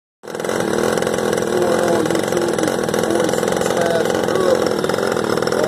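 Mini quad's small single-cylinder engine running steadily at an even speed with a fast, buzzy firing rhythm, starting right at the outset.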